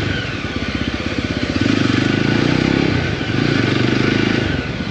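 Motorcycle engine running under way, its exhaust pulses steady, with two stretches of about a second each where the throttle is opened and it gets louder.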